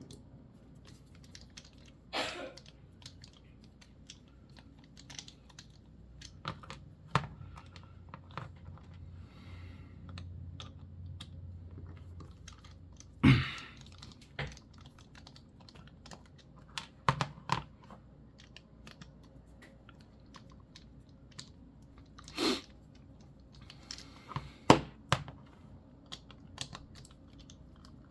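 Small scattered clicks and taps of a screwdriver and metal knife parts being handled while screws are backed out of an OTF knife's handle, with a few louder sharp taps and a faint low hum for a few seconds in the middle.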